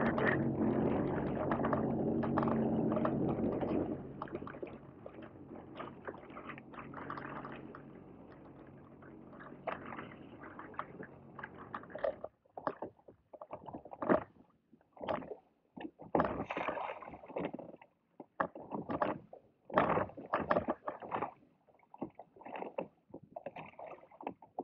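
The jet ski's Rotax three-cylinder engine hums under way with water rushing past the hull. It eases off about four seconds in and cuts out about halfway through. After that, water splashes and slaps against the drifting hull in short irregular bursts while the anchor rope is handled.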